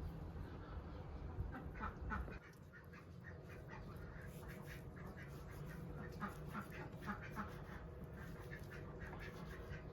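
Farmyard fowl giving many short repeated calls, over a low rumble that cuts off about two seconds in.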